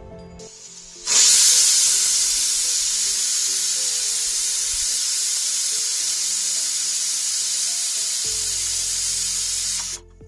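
Pressure cooker whistle going off as the cooker of dal reaches pressure: a loud hiss of escaping steam starts suddenly about a second in, holds steady for about nine seconds, then cuts off.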